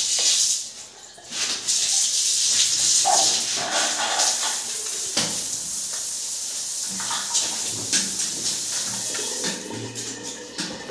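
Square overhead rain shower head running, its water falling in a steady hiss.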